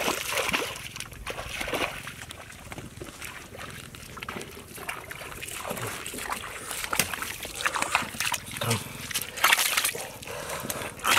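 Catfish thrashing in a small pit of shallow muddy water, splashing in short irregular bursts as hands reach in to grab them, loudest near the end.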